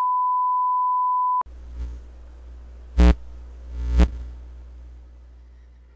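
A steady test-tone beep, the reference tone that goes with television colour bars, cutting off abruptly about a second and a half in. Then a low hum with two loud thumps about a second apart.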